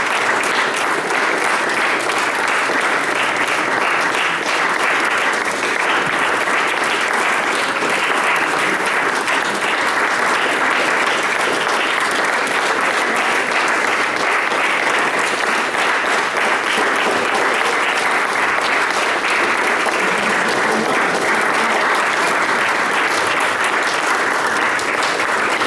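Sustained applause from a group of people clapping their hands, steady and unbroken.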